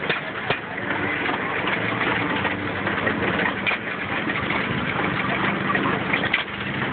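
Several antique stationary gas engines, hit-and-miss type, running together in a steady mechanical din, with a few sharp clicks standing out.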